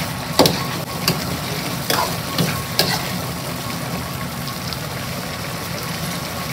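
A metal ladle scrapes and knocks against a metal wok about four times in the first three seconds, stirring a bubbling stew of chicken and winter melon. A steady rush of the stove on high heat runs underneath.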